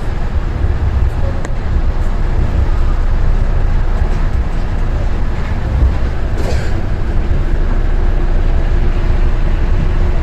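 Osaka Monorail straddle-beam train on rubber tyres running between stations, heard inside the front car: a steady low rumble of tyres and running gear, with a steady hum coming in about two-thirds of the way through and a brief hiss a little after the middle.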